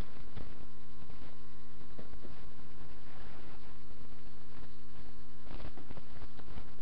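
Steady electrical mains hum and buzz, one unchanging pitched drone with many overtones. A few faint clicks and rustles come from the phone being handled, one cluster a little over five seconds in.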